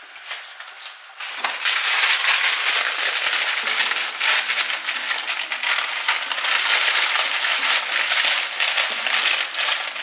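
Frozen mixed vegetables hitting a hot pan, starting suddenly about a second and a half in: loud, dense sizzling and crackling as the frozen pieces meet the hot fat.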